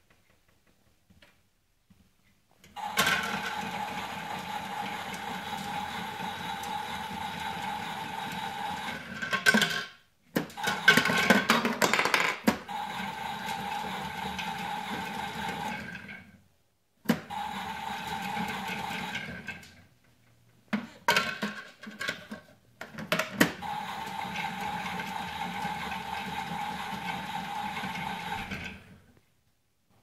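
Toy washing machine running with a steady whir. It cuts out and starts again several times, with a louder clattering stretch about ten seconds in and a few clicks between runs.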